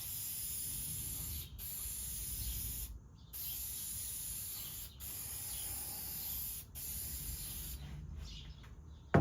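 Aerosol spray can of finish hissing in a series of spray passes, with short breaks between strokes, stopping about eight seconds in.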